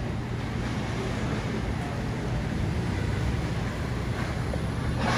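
Traffic on a rain-wet city street: a box truck drives past close by, its engine humming low and its tyres running on the wet road, rising a little as it passes.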